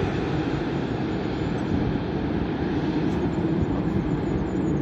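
Airbus A330-300 airliner on final approach, its jet engines giving a steady rushing rumble as it flies low away from the listener.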